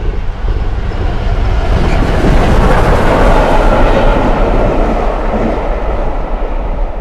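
A train passing at speed: a rushing rumble that swells to its loudest about halfway through and then fades away.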